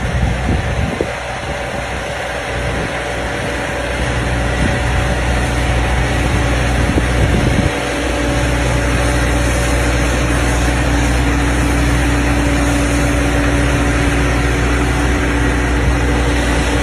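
John Deere 6105MC tractor's 4.5-litre four-cylinder diesel running steadily under load while pulling a ripper through the soil. It grows louder about four seconds in, with a brief dip near eight seconds.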